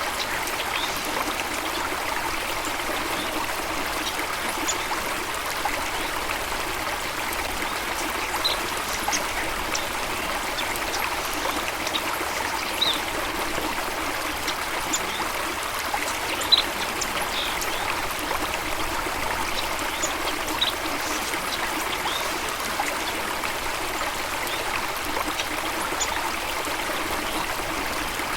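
Steady rush of running water, with occasional short high chirps over it.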